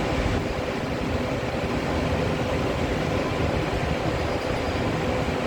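Motorized target carrier running along its overhead track, moving the paper target out downrange with a steady rolling, mechanical run; no gunshots.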